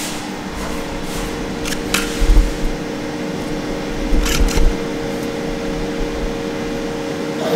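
Steady machine hum holding two even tones, with a few sharp clicks and dull low bumps about two seconds in and again about four seconds in.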